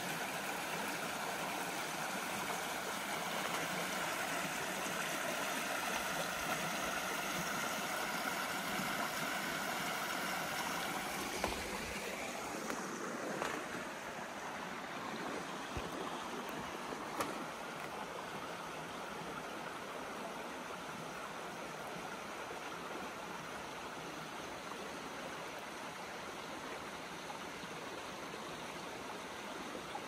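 Running stream: a steady rush of flowing water that eases slightly about twelve seconds in, with a few faint clicks.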